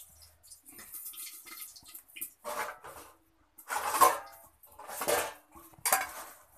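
Stainless steel plates and bowls clinking and scraping as crisp fried besan sev is scooped and rustled by hand, in irregular bursts, loudest about four seconds in.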